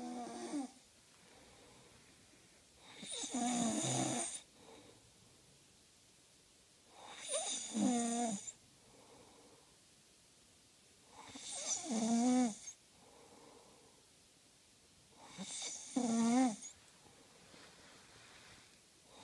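A man snoring in his sleep: one loud snore about every four seconds, five in all, each lasting a second or so with a wavering pitch, and faint breaths between them.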